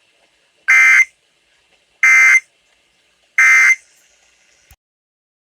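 Emergency Alert System end-of-message signal: three short, loud digital data bursts about a second apart, the warbling modem tones that close an EAS test broadcast.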